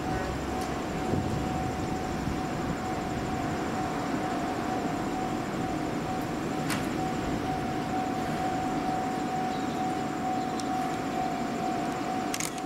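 IGR 7000 series electric train standing at the platform, its onboard equipment humming: a steady high whine over a low hum, with a single click about halfway through.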